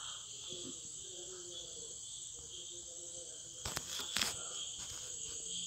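Steady high-pitched chirring of crickets in the background, with two sharp clicks close together about four seconds in.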